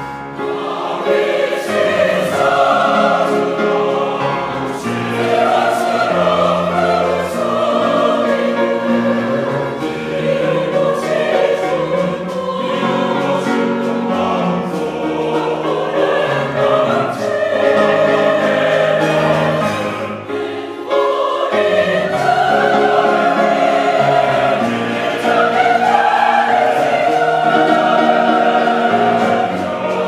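Mixed choir of women and men singing a Korean choral piece in full voice with instrumental accompaniment. The sound briefly drops away at a phrase break about twenty seconds in, then the choir comes back in.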